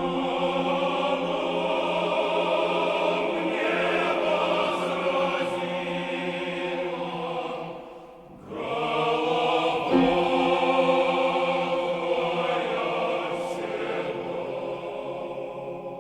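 Unaccompanied mixed choir singing sustained chords. The voices break off briefly about eight seconds in, then re-enter and swell before slowly fading.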